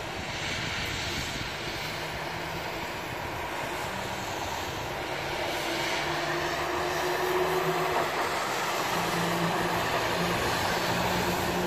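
Heavy rain falling as a steady hiss, with the low hum of cars passing on the wet street below, growing a little louder from about halfway through.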